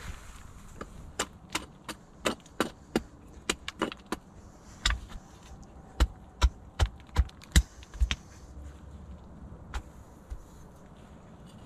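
Wood being chopped or split by hand: about twenty sharp knocks and cracks at an uneven pace. The heaviest blows, with a dull thud, come in the second half.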